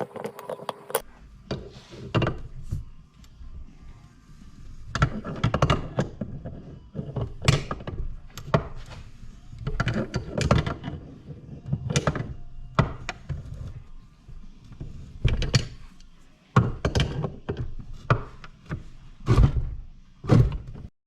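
Repeated irregular knocks and clunks of metal engine parts and hand tools being handled and set down on a workbench during motorcycle engine assembly.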